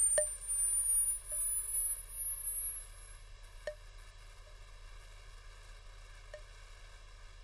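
Musical Tesla coil's plasma playing a high sine-wave sweep that rises slowly in pitch over a steady low buzz, while the 36% salt-water solution gives a few scattered sharp pops.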